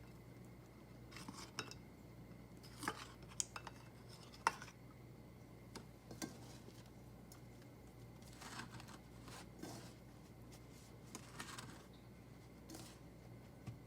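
Sporadic small clicks, taps and brief scrapes of small objects being handled, over a steady low hum.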